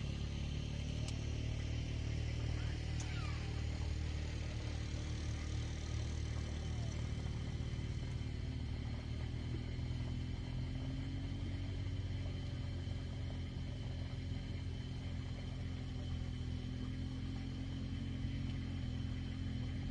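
Steady low engine rumble.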